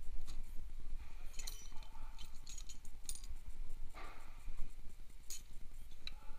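Metal hand tools clinking and clattering as they are picked up and handled at a toolbox, about half a dozen separate clinks over a steady low hum.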